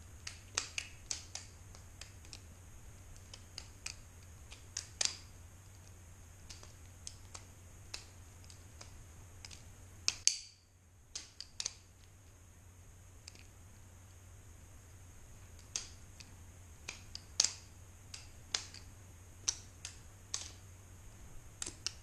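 Balisong (butterfly knife) being flipped by hand: its handles clack against each other and the blade in irregular sharp clicks, sometimes two or three in quick succession, with pauses between runs.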